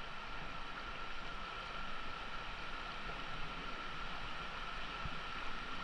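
Mountain stream rushing over rocks and a small cascade: a steady hiss of running water, with a thin, steady high tone above it.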